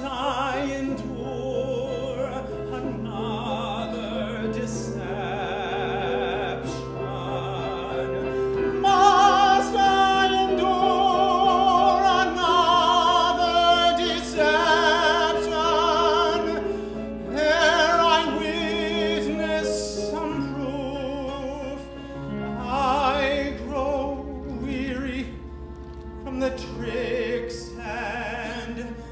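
A male singer singing an operatic aria with strong vibrato over steady instrumental accompaniment, louder and fuller through the middle of the passage.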